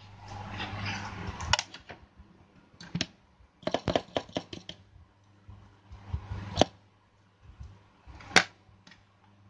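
Hands handling an opened smartphone and small repair tools on a work table: a rustle, then scattered light plastic clicks and taps, with a quick run of clicks about four seconds in and a sharper click near the end. A low steady hum runs underneath.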